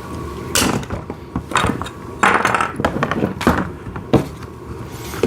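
Hard plastic parts of a ride-on toy tractor's canopy knocking and scraping as they are handled and pushed into place: a series of short knocks, with a longer scrape about two seconds in.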